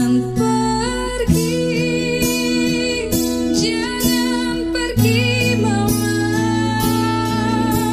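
A slow song: a woman singing over plucked acoustic guitar, with held bass notes underneath.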